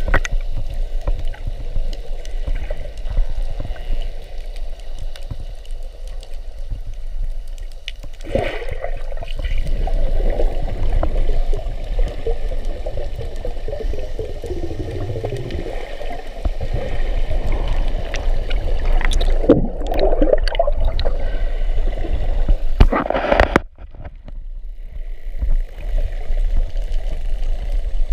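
Muffled underwater noise: water sloshing and gurgling against a camera housing over a low rumble, with several louder bubbling surges whose pitch sweeps up and down.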